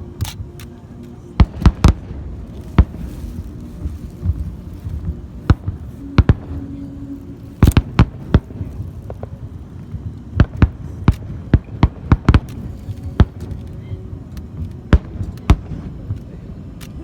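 Aerial fireworks display: about twenty sharp bangs from bursting shells at uneven intervals, some in quick clusters, over a low rumble.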